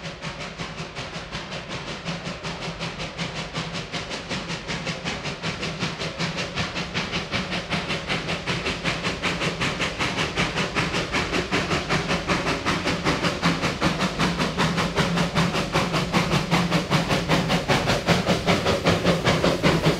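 NA class narrow-gauge steam locomotive chuffing in a rapid, even exhaust beat as it approaches, growing steadily louder.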